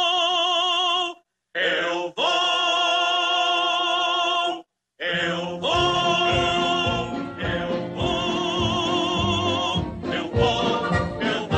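Cartoon dwarfs singing long held notes with a wide vibrato, in three phrases separated by short breaks. From about six seconds in, orchestral march music joins under the voices.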